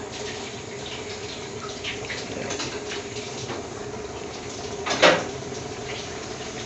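Steady hiss of a gas-fired tandoor, with skewered paneer tikka sizzling and lightly crackling inside it. A single sharp knock comes about five seconds in.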